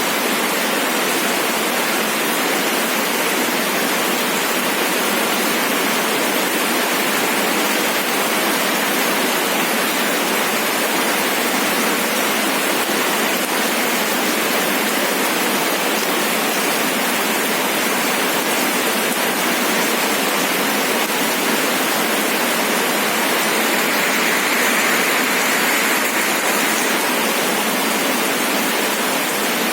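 Steady rain, an even continuous hiss with no breaks.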